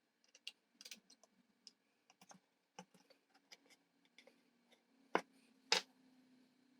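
Light, irregular clicks and taps of small electrolytic capacitors being handled and their leads pushed into the holes of a circuit board, with two sharper clicks near the end.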